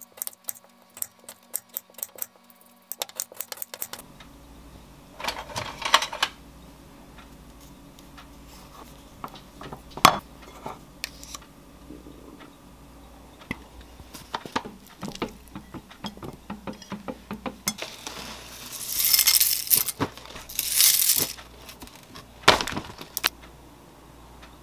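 Kitchen preparation sounds: a knife ticking and clicking against a ceramic plate while slicing Korean melon, then scattered clinks and knocks of dishes and a spoon on a bowl. Near the end come two short rustling pours of dry cereal flakes into the bowl.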